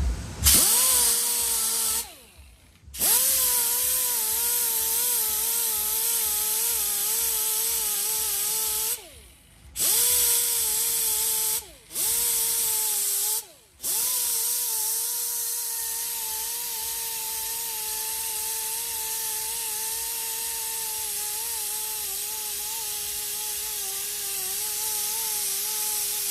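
Power tool spinning a red surface-conditioning disc, grinding curb rash out of an alloy wheel rim. It runs in short bursts, stopping and spinning back up four times in the first half, with its pitch wavering under load. It then runs steadily.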